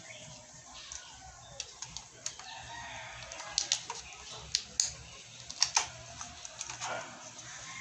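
Laptop keyboard keys being pressed: scattered sharp clicks, several in quick pairs, growing more frequent after about three seconds in.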